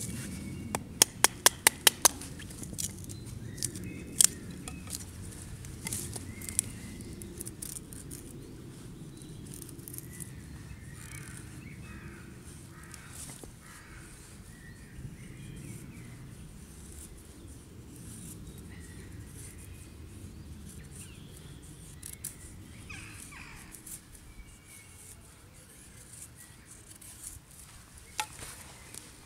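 Knife whittling a wooden stick: a quick run of about six sharp clicks about a second in, a few single clicks after, then quieter shaving and scraping of the blade on the wood. Birds call now and then in the background.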